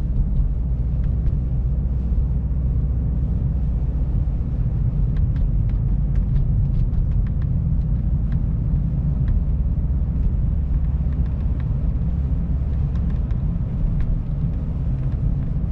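Steady low road and drivetrain rumble inside the cabin of a BMW X5 driving on snow-covered roads, with a few faint ticks midway.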